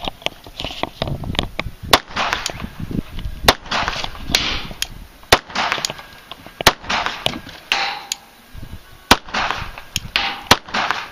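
Sig Sauer P232 pistol firing about six single shots at irregular intervals of one to two and a half seconds. Each shot is a sharp crack followed by a brief echo.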